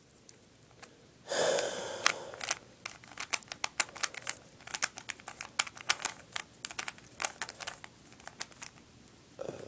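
Rubik's Cube being turned quickly by hand: a rapid run of sharp plastic clicks, several a second, as its layers snap round while the first layer is solved. A brief rustle of handling comes about a second in.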